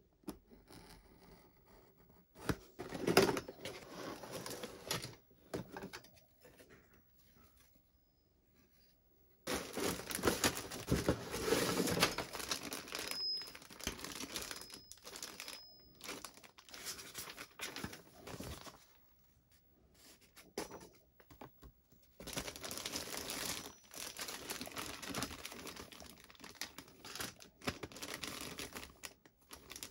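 Hobby knife slitting open a cardboard model-kit box, then plastic bags of plastic parts sprues crinkling and rustling as they are handled, in several bursts with short quiet gaps between.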